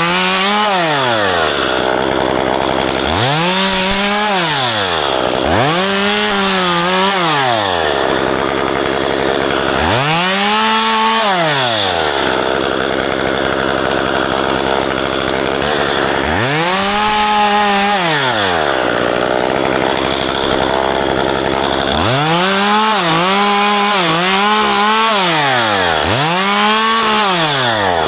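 Chainsaw cutting branches while pruning a ficus tree: the engine revs up and falls back about nine times, with a gap in the revving around the middle, over a steady loud buzz.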